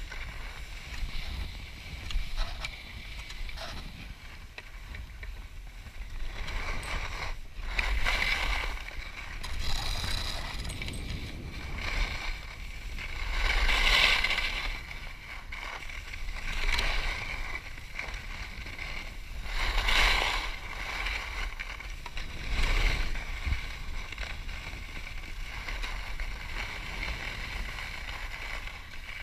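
Skis hissing and scraping over packed snow on a downhill run, swelling every few seconds as the edges bite into turns, over a steady low wind rumble on the microphone.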